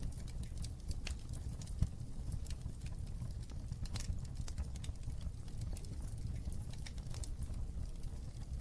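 Wood fire crackling in a fireplace: irregular sharp pops and ticks, several a second, over a low steady rumble of the flames.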